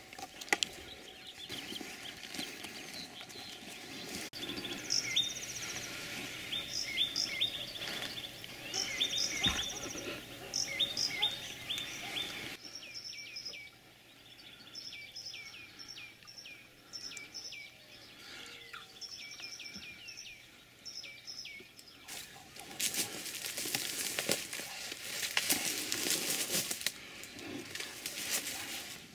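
Small songbirds chirping, with many short chirps that slide down in pitch and some higher trills. In the last several seconds a broad rustling noise covers them.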